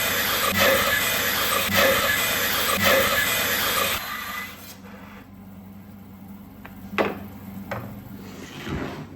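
Wood lathe working spinning rainbow plywood: a loud hissing rasp of cutting that swells about once a second, stops about four seconds in, leaving a quieter hum with two sharp knocks near the end.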